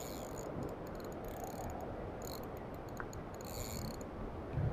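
Fixed-spool spinning reel whirring and clicking in four short high-pitched bursts while a hooked mullet is played on the rod.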